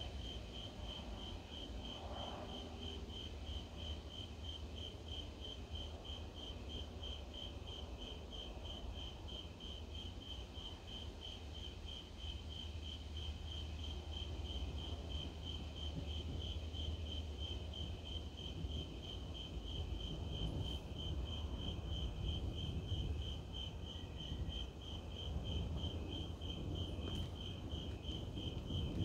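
Crickets chirping at night in a steady, even pulse. A low rumble underneath swells in the second half.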